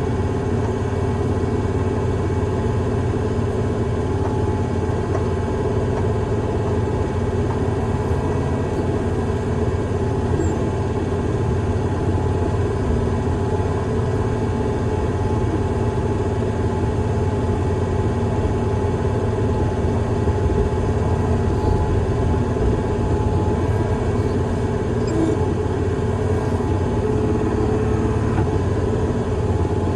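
Engine of a heavy construction machine running steadily at an even speed, with no revving.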